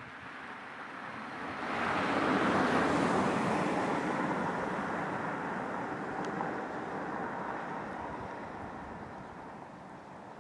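A vehicle passing close by: a rushing noise that swells quickly about two seconds in, then slowly dies away as it goes off.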